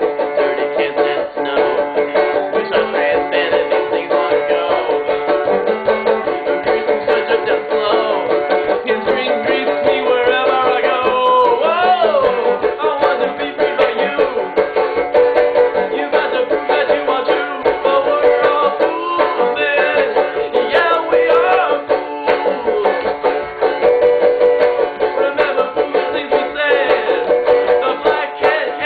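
Banjo played in a steady run of quick picked notes, with a few sliding notes now and then.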